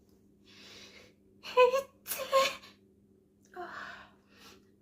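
A person sneezing: a breathy intake, a short voiced "ah", then the loudest burst, a sharp "choo", about two seconds in, followed by softer breaths.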